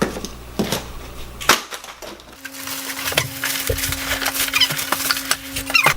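Packaging being handled during unboxing: scattered clicks, knocks and crackles. A steady low hum sets in about halfway through.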